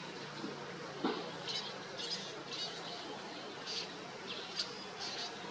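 Small birds chirping outdoors in short, high calls, several a second, over a faint low hum, with a soft knock about a second in.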